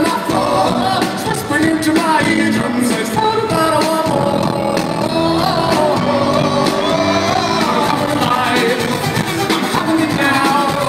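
Rock band playing live with a lead singer, a full mix of singing and instruments at a steady loud level.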